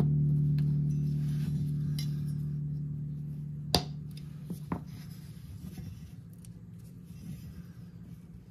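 A low held note of background music fading away, with one sharp click a little under four seconds in and two fainter ticks just after.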